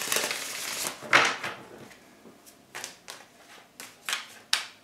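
Tarot cards being shuffled by hand, the rustling fading out with a short final burst about a second in, followed by a few sharp clicks and taps of the cards being handled.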